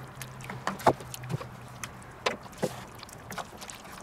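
A wooden spoon stirring thick goulash in a cast-iron Dutch oven, sloshing the stew with irregular knocks and scrapes against the pot.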